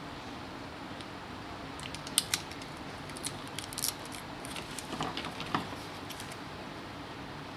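Adhesive tape being peeled from its paper backing and handled: a scatter of sharp crackles and ticks through the middle few seconds, over steady faint background noise.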